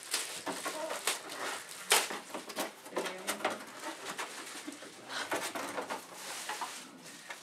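Irregular rustling and clicking of cardboard and plastic packaging and vacuum parts being handled while a Shark carpet cleaner is unpacked from its box.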